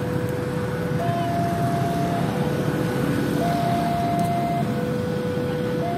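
Two-tone electronic warning alarm, switching back and forth between a lower and a higher steady tone, each held a little over a second, over a steady low rumble of traffic.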